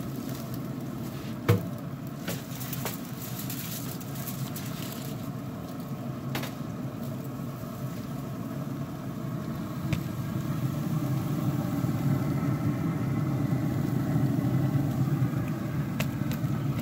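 Steady low hum of a wood pellet smoker's running fan, with a loud metal click of tongs about a second and a half in and a few more clicks and foil rustles after it.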